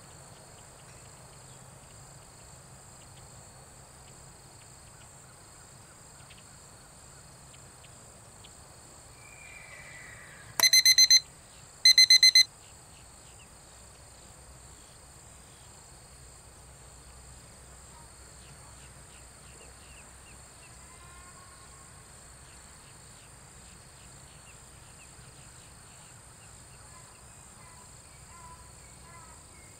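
Two loud electronic beeps about a second apart, a little over ten seconds in, each a short, rapidly pulsing pitched tone: an interval signal falling on a 30-second mark, the cue to record a behaviour observation. Beneath them a steady high insect drone, with faint bird calls near the end.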